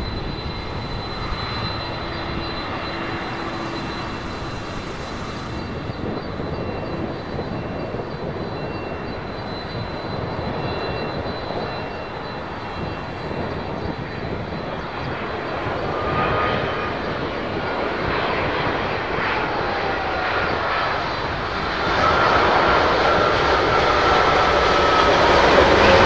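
Boeing 787-8 with Rolls-Royce Trent 1000 turbofans on final approach, a steady rush of jet engine noise that grows louder as the airliner nears. High whining tones slide down in pitch from about the middle on, and the sound is loudest near the end.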